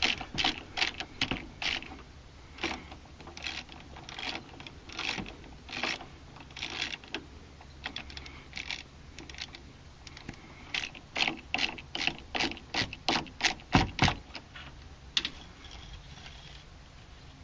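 Hand socket ratchet clicking in repeated short strokes as it backs out a 13 mm lower engine-mount bolt. The clicks come in uneven runs, quickest about two-thirds of the way through, with one duller knock just after.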